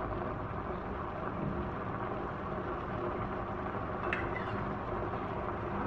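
Fish in coconut-milk gravy simmering in a nonstick pan: a steady bubbling hiss, with a faint click about four seconds in.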